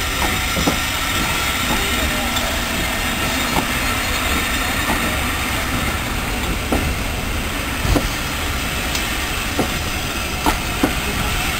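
Railway passenger coaches rolling slowly past along a platform: a steady rumble of wheels on rail, with irregular clunks and knocks as the wheels cross rail joints.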